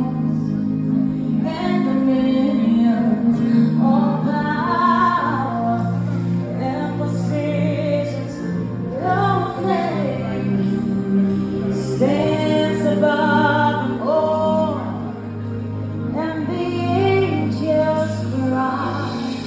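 A woman singing a gospel song in long held, gliding phrases over sustained accompanying chords.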